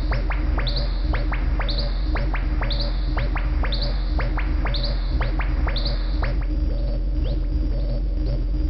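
Modular synthesizer playing a low steady drone under quick downward-sweeping electronic chirps, several a second, with a brighter rising blip about once a second. The chirps thin out about six seconds in.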